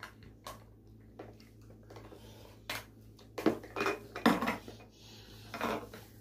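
Light tableware clatter during a meal: plastic cups, dishes and food containers knocked and set down on a table. Small clicks early on, then a few louder knocks past the middle.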